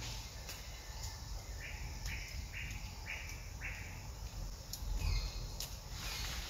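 A bird calls five times in quick succession, about two calls a second, over a steady low outdoor rumble, with a few faint clicks later on.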